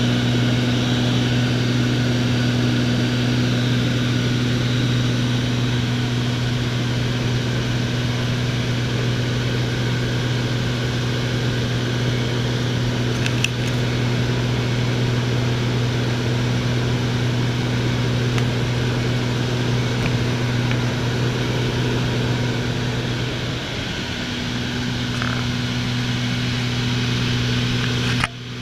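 Piston engine and propeller of a light single-engine high-wing plane droning steadily in cruise, heard from inside the cabin, with a brief dip in level shortly before the end.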